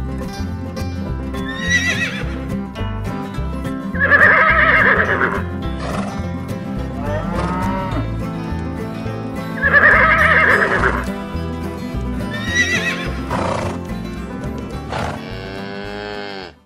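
Horses whinnying several times, the two loudest calls about four and ten seconds in, over background music.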